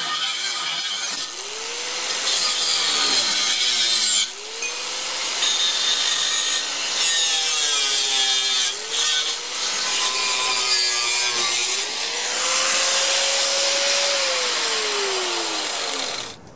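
Corded angle grinder with a cut-off disc slicing through square steel tubing: the motor's whine sags each time the disc bites into the metal and climbs back when the load eases, over a harsh grinding hiss. Near the end the whine falls steadily as the grinder winds down.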